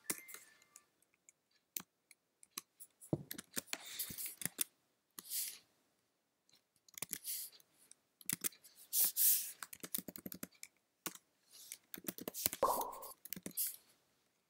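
Typing on a computer keyboard: irregular keystroke clicks in short bursts with brief pauses between them.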